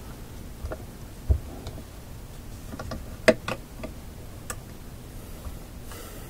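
Scattered small clicks and taps from hands handling fine magnet wire on a coil form held in a drill chuck, with one sharper click about three seconds in and no motor running.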